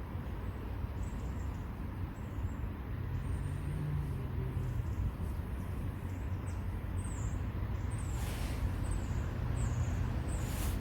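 Steady low rumble of distant road traffic, with faint short high-pitched chirps now and then and two brief rushing bursts near the end.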